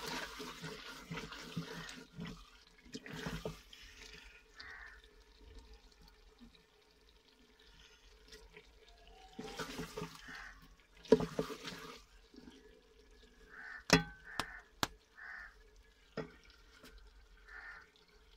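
Wooden spoon stirring and scraping potatoes and masala around an aluminium pot as they fry with a little water, with a wet sizzling. A few sharp knocks of the spoon against the pot come a little past the middle.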